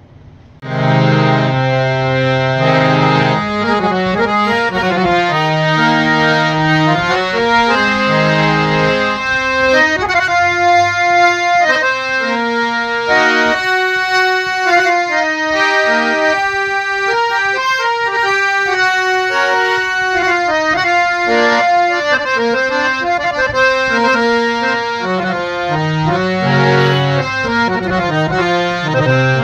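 A Dwarkin & Sons harmonium with three reed sets (two male and one female) being played by hand, a tune with several notes sounding at once. It starts about a second in.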